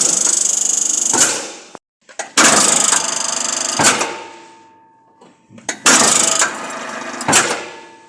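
A machine tool's electric brake motor switched on and off three times in short runs. Each run gives a loud crackling, grinding scrape with a rapid flutter, ends with a sharp knock at switch-off, and then dies away as the motor spins down. The scraping comes from the cooling-fan impeller catching on the brake.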